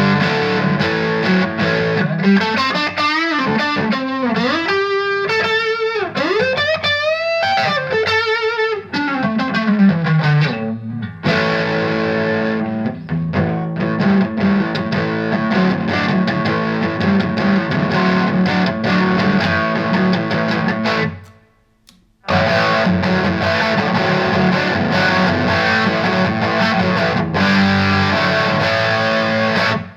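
Overdriven electric guitar, a Fender Modern Player Telecaster on its Tele single-coil pickup through a Vox VT20X amp: lead lines with wide string bends and vibrato, then fuller chordal playing, with a brief stop about two-thirds through before it carries on.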